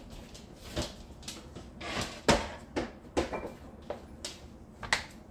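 A kitchen drawer being opened and rummaged through: a series of separate knocks and clatters, the loudest a little over two seconds in.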